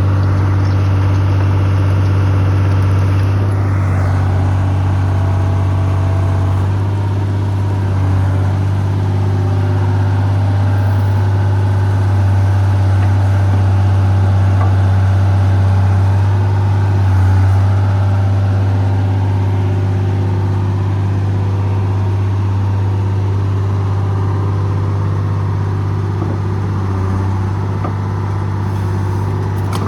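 Excavator's diesel engine running steadily under operation, a deep even hum with little change in speed.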